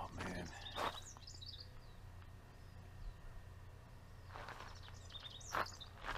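Birds chirping a few times over a steady low hum, with a couple of brief knocks about a second in and near the end.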